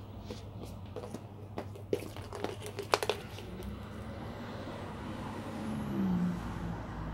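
Plastic toy egg capsules knocking and clattering on a hard tiled floor: a cluster of sharp clicks and knocks a couple of seconds in, over a steady low hum.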